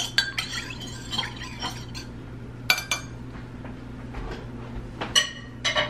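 Metal spoon stirring in a ceramic mug, clinking quickly against the sides for about two seconds, then a few separate, louder ringing clinks of metal on crockery.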